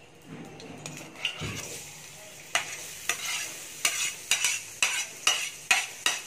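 Chopped onions sizzling as they fry in hot oil in a steel kadai, the sizzle building after the first second or so. They are stirred with regular sharp scraping strokes on the pan, about two a second.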